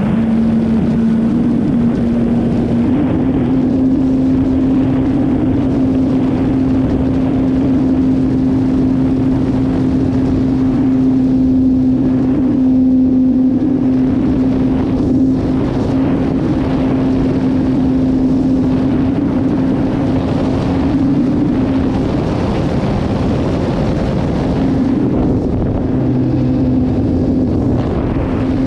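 Radio-control model airplane engine running in flight, heard close from the airframe, turning a 12-inch propeller: a steady drone whose pitch steps up in the first few seconds and then holds, with air rushing over the microphone.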